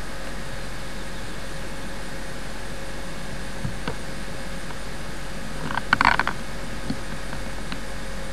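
Steady hiss and hum of an old camcorder's recording, with a few faint clicks and a brief scratchy noise about six seconds in.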